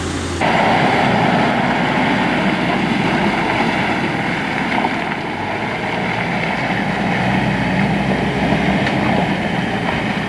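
Land Rover Defender's engine running steadily under load as the 4x4 drives up a rutted dirt track. The sound changes abruptly just under half a second in.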